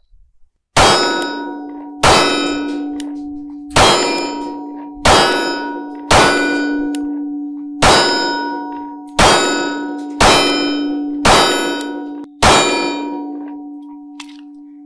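Ten rapid 9mm pistol shots from a Springfield Hellcat Pro, about one a second, each hit setting a steel target ringing with a clang. The ring lingers and slowly fades after the last shot. Every round fired without a stoppage.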